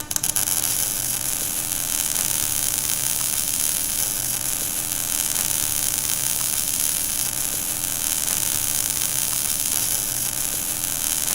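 Steady machine hum with a strong hiss, starting abruptly and running evenly throughout.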